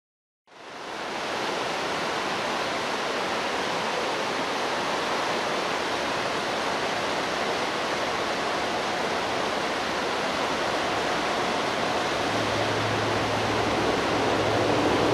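Steady rushing outdoor noise that starts about half a second in. In the last few seconds the faint hum of a distant BVZ electric train joins it.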